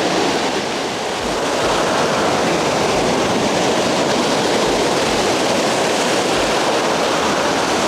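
Ocean surf breaking and washing up the beach, a steady loud rush.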